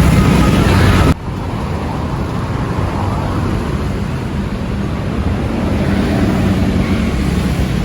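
Loud roadside vehicle noise that cuts off abruptly about a second in, giving way to steady road traffic noise of passing engines and tyres.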